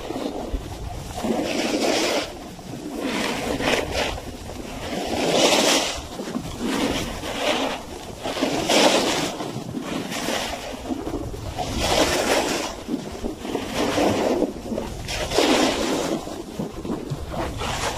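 Snowboard edges hissing and scraping across snow through a run of turns, the sound swelling and fading every second or two, over a steady rumble of wind on the microphone.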